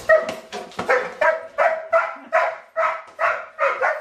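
A dog barking over and over in quick, even succession, about two to three barks a second.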